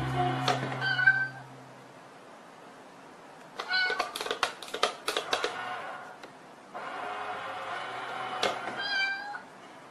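Cat-box coin bank toy whirring and clicking as its lid pops open and shut, with short high meows, in three bouts as a cat paws at it.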